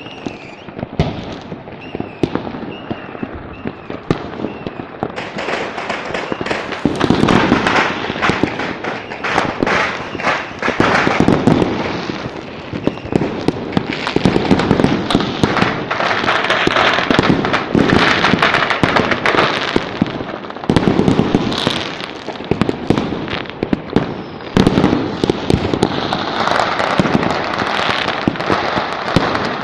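Dense barrage of firecrackers and fireworks going off, many sharp bangs and cracks overlapping into a continuous crackle. It thickens about five seconds in.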